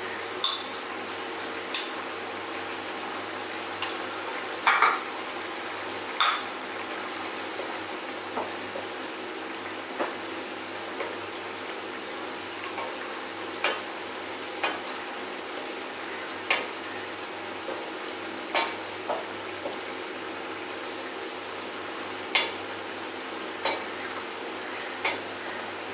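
Mutton gravy sizzling steadily in a metal pan on a low flame as it reduces, stirred with a ladle that knocks sharply against the pan about a dozen times at irregular intervals.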